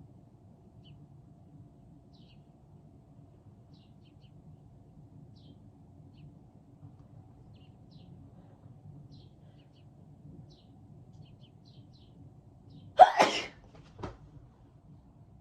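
A person sneezing once, loudly, about thirteen seconds in, followed a second later by a short, fainter burst. Before it there is only a low steady background hum.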